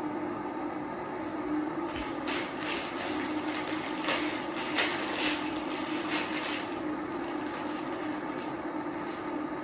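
Plastic seasoning bag crinkling and rustling as it is torn open and its packets handled, mostly in the middle few seconds, over a steady low hum.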